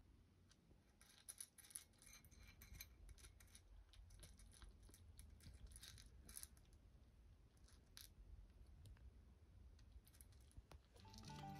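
British longhair kitten eating dry kibble from a ceramic bowl: faint crunching with a scatter of small sharp clicks, thickest in the first two-thirds. Background music begins near the end.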